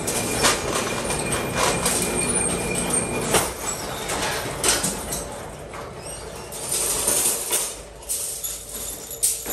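Steel rod blanks clinking and clattering against each other as they are handled in bundles, a series of sharp irregular metallic knocks. A steady machine hum runs under the first three and a half seconds, then drops away.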